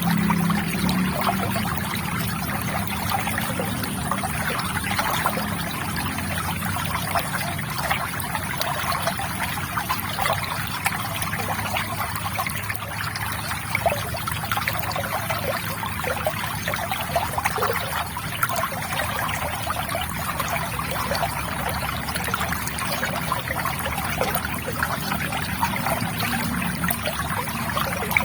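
River water trickling and burbling in a steady flow, with many small splashes.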